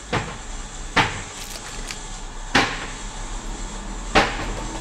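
Four sharp knocks, unevenly spaced about one to one and a half seconds apart, over a steady electrical hum and hiss.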